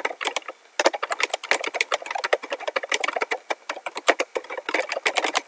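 Typing on a laptop keyboard: quick, uneven key clicks in a steady run, picked up close by the laptop's own microphone.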